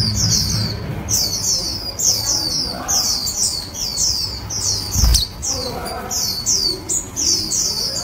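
Warbling white-eyes calling: a steady run of short, high chirps, each sweeping downward, coming in quick pairs and triplets. A dull thump sounds about five seconds in.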